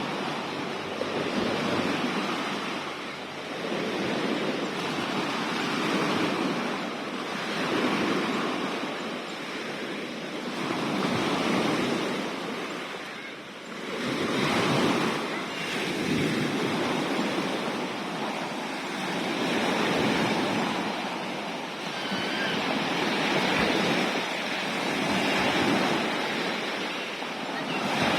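Sea waves breaking and washing ashore: a steady surf noise that swells and fades about every two seconds.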